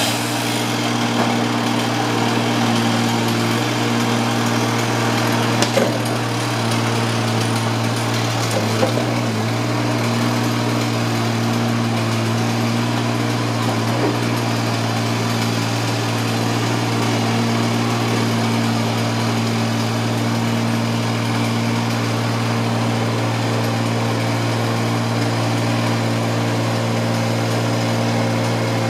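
An engine running steadily at a constant speed, with a couple of brief knocks over it.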